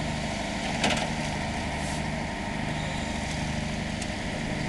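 Fire engine's motor running steadily in a low drone, with a sharp knock about a second in.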